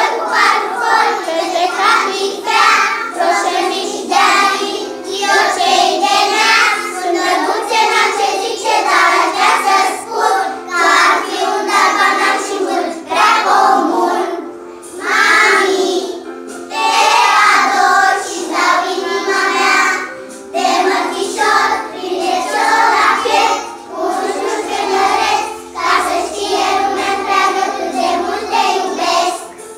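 A group of young children singing a song together, line after line, with brief breaths between phrases.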